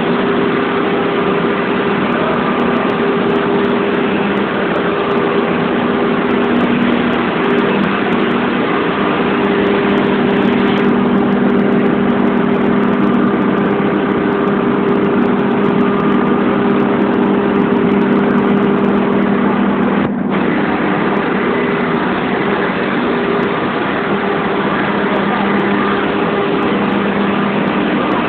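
A loud, steady machine drone, an engine or motor running without a break, with a humming tone over a dense hiss. It dips for a moment about twenty seconds in.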